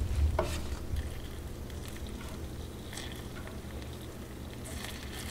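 Hot sugar syrup bubbling in a frying pan while a metal spoon ladles it over a skewer of fruit for tanghulu, with a faint steady hiss, a short click about half a second in and a few light clinks around three seconds.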